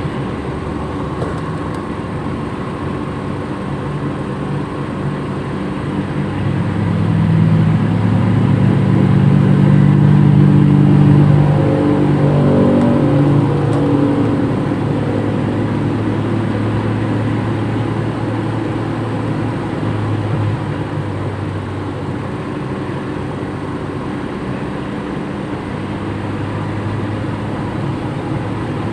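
Toyota Kijang engine pulling harder under acceleration over steady road noise. It grows louder from about six seconds in, with the pitch climbing slightly, then eases back after about fourteen seconds.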